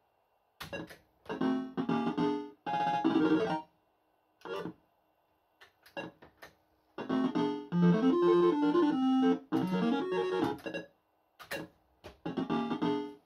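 Barcrest MPU4 fruit machine sounding its electronic jingles and beeps during play. Short bursts of tune come in quick succession, a longer stepping melody plays in the middle, and sharp clicks fall between them.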